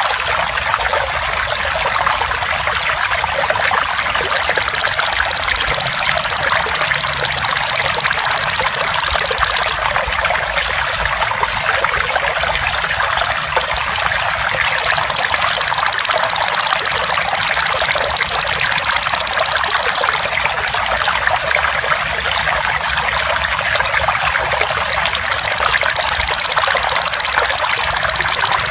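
Steady trickling water, with a loud, rapidly pulsing high-pitched insect buzz from a belalang emas that sounds in bouts of about five seconds with pauses of similar length, three times.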